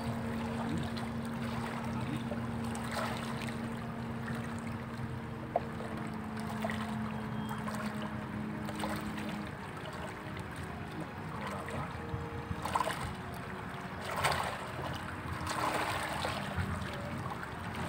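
A steady low motor drone over a hiss of wind and water; its lowest tone stops about nine and a half seconds in, while fainter hum continues.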